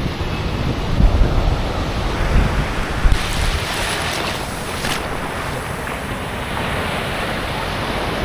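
Ocean surf breaking and washing up the beach, with wind buffeting the microphone; a brighter wash of surf comes in about three seconds in.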